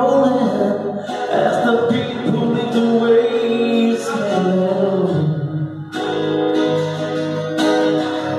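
Live solo acoustic set: a man sings while strumming chords on an acoustic guitar.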